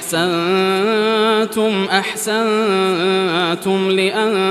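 A man reciting the Quran in melodic tajweed style, drawing a word out into a long held note that wavers up and down in pitch, with a short break about three and a half seconds in before it carries on.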